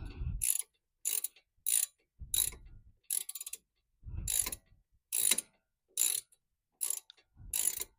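Click-type torque wrench being adjusted by twisting its handle, the setting mechanism ratcheting in short bursts of clicks, about ten of them spaced well under a second apart, as it is wound down to a lower torque setting.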